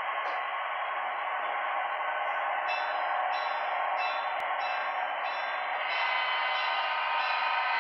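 HO-scale model train running out of view on the layout: a steady hum, joined from about three seconds in by faint regular ticks, roughly one and a half a second.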